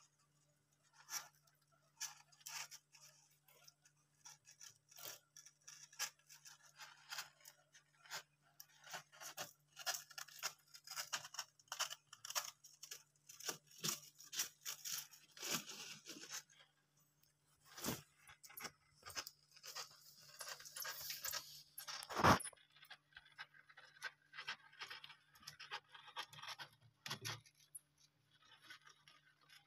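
Dwarf hamsters moving in wood-shaving bedding: faint, irregular crackling and scratching, with one sharper click a little over twenty seconds in, over a faint steady low hum.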